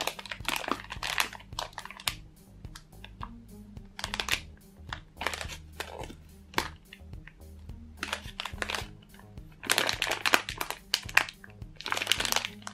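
Clear plastic packaging bags crinkling in irregular bursts as they are handled, and a foam tofu squishy is squeezed through its sealed bag. The crinkling comes in louder spells around the start, about four seconds in, and again near ten and twelve seconds.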